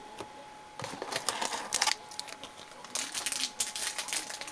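Trading cards and pack wrappers being handled, with quick papery clicks and rustles in two spells, starting about a second in and again about three seconds in. A faint steady whine runs underneath.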